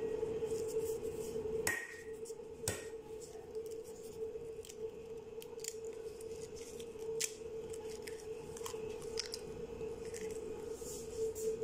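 A raw egg being cracked against a small bowl and its shell pulled apart by hand: a series of small sharp clicks and cracks, the clearest about two seconds in, over a steady hum.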